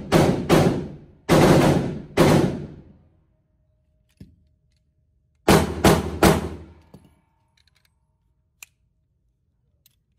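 Handgun shots on an indoor range, each with a short echo off the concrete: four shots in the first two seconds or so, then a quick string of three about five and a half seconds in.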